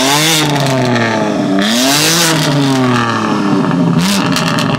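BMW M4 CS's turbocharged 3.0-litre inline-six with an aftermarket exhaust, free-revved three times while standing still. Each time the engine note climbs steeply, then falls back more slowly, with a rush of exhaust noise at the top of the first two revs.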